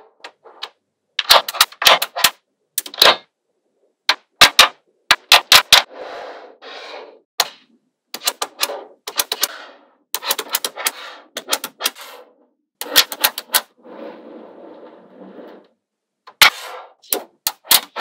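Small magnetic balls clicking sharply as strips and blocks of them are snapped onto a magnet-ball panel, in quick clusters of clacks with short pauses between. Softer stretches of rattling come between the clusters, the longest near the three-quarter mark.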